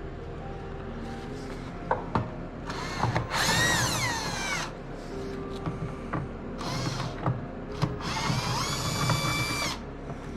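Power drill-driver motor whining in three short runs, its pitch sliding down and up as it backs screws out of the side plate of a Minn Kota PowerDrive trolling motor mount. There are a few sharp clicks between the runs.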